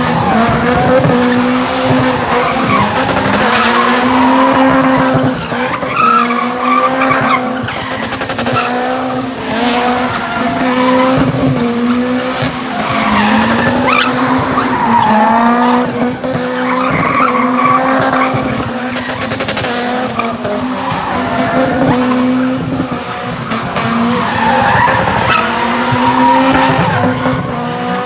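A car doing doughnuts in thick tyre smoke. The engine is held high in the revs with a brief dip every second or two, over continuous tyre squeal.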